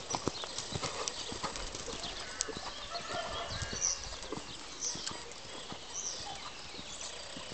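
Hoofbeats of a ridden horse cantering on the soft dirt footing of an arena, a steady run of short thuds and clicks.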